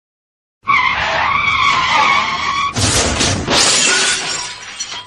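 Staged accident sound effect: vehicle tyres screech in a skid for about two seconds, then a sudden crash that clatters on and fades out near the end.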